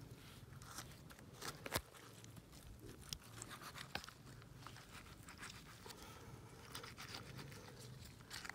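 Faint crunching and wet clicking from gloved hands working in a dead piglet's opened chest and throat, probing for a choking obstruction in the windpipe. There are a few sharper clicks, the loudest about two seconds in.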